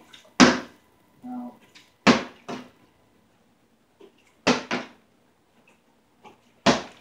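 A partly filled plastic water bottle flipped and landing on a cloth-covered table four times, about every two seconds, each landing a sharp knock. Two of the landings are followed quickly by a second knock.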